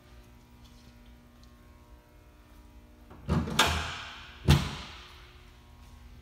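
A loud scraping rumble, then a sharp bang about a second later, each echoing off hard walls: a door being pushed shut.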